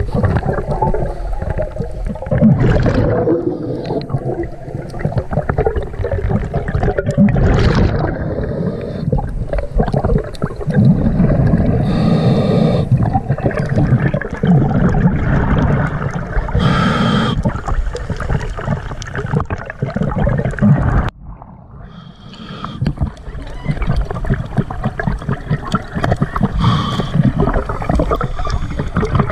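Scuba regulator breathing underwater, heard through a camera housing: hissing inhales and gurgling bubble exhales, repeating, with a short quieter pause about two-thirds of the way through.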